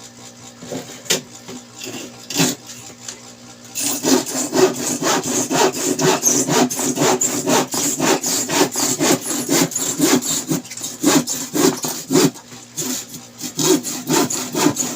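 A hand tool scraping back and forth on a surface in quick, even strokes, about three a second. It begins with a few scattered strokes and settles into a steady, louder rhythm about four seconds in.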